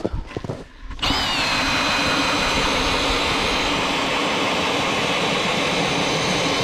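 Power ice auger drilling a hole through lake ice: a motor whine that starts sharply about a second in, settles a little lower in pitch as the blade bites, then holds steady under load.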